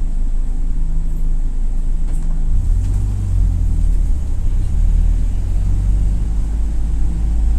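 Toyota Coaster LPG minibus engine and running gear heard from inside the passenger cabin, running steadily at first. About two and a half seconds in, the deep engine sound grows stronger as the bus pulls away and drives on.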